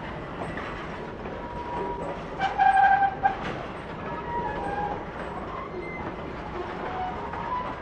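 A train of loaded PCA bulk cement wagons rolling slowly past, wheels clattering over the rail joints. A brief metallic wheel squeal about two and a half seconds in is the loudest moment.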